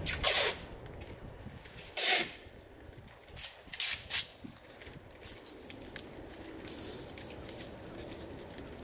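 Masking tape pulled off its roll in short, loud rips, about four of them in the first half, as masking paper is taped onto a car's body panels.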